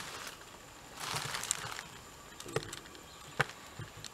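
Handling noise from a camera being picked up and moved: a rustle lasting under a second about a second in, then two sharp clicks.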